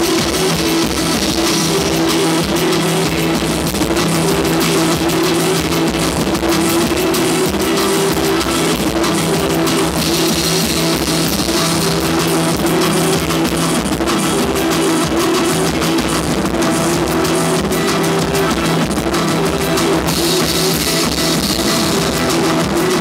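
Rock band playing live: guitar over a drum kit with cymbal hits, loud and without a break.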